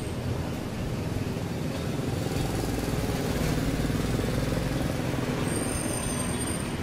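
Street traffic: motorbikes and cars passing on a city road, a steady hum that swells as a vehicle goes by in the middle, with a thin high whine near the end.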